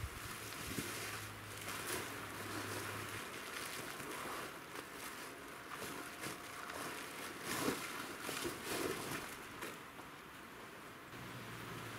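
Fabric rustling and flapping in irregular surges as a blanket is unfolded and rugs are spread and smoothed over a tent's canvas groundsheet, with soft shuffling on the floor. The loudest rustle comes about two-thirds of the way in.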